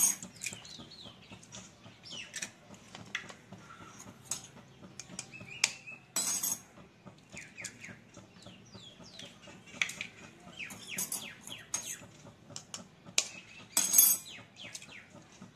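Eggshells tapped with a metal utensil and cracked open into a plastic bowl: a string of sharp taps and cracks, the loudest about six seconds in and again near the end. Birds chirp in the background.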